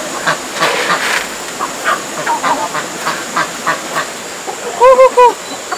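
A string of light clicks and taps from the wire pigeon cage as the birds are fed grain. About five seconds in, farm poultry give four loud, short honking calls in quick succession.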